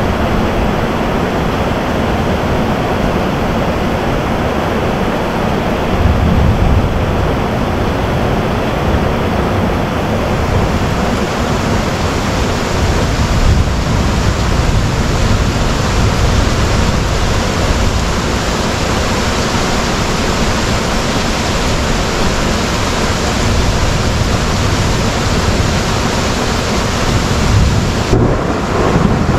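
Heavy rain in a thunderstorm: a steady, loud hiss of downpour with low rumbling of thunder underneath, swelling a few times.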